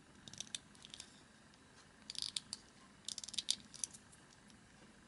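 Small plastic parts of a Gundam model kit clicking and rattling against each other in the fingers, in three short flurries of light clicks, as a part is turned and fitted into place.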